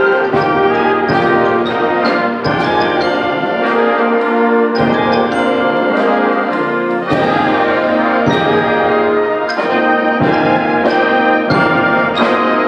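High school symphonic band playing a loud full-ensemble passage, with brass chords held over regular percussion accents about every two-thirds of a second.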